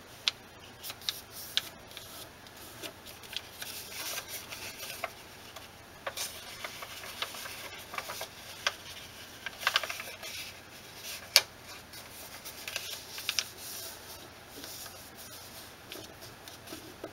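A sheet of paper crinkling and crackling as it is folded and creased by hand, with scattered sharp crackles and taps, the loudest cluster about ten seconds in.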